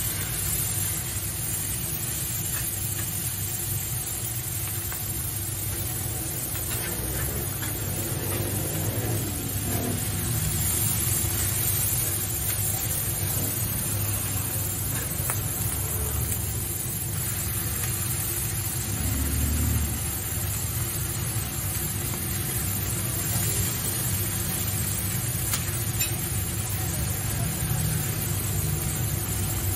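Steady low rumble of street traffic with an idling vehicle engine, under a constant high hiss.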